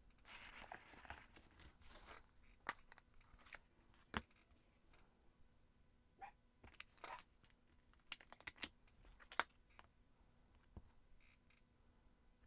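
Faint crafting handling sounds: a soft plastic rustle of clear rubber-style stamps being pulled off their sheet for the first couple of seconds, then scattered light taps and clicks as the stamps and an ink pad are set down on a cutting mat, the sharpest about nine seconds in.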